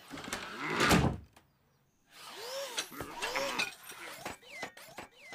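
Cartoon sound effects: a rising whoosh that cuts off about a second in, then, after a short silence, a string of rising-and-falling mechanical whirs with small clicks.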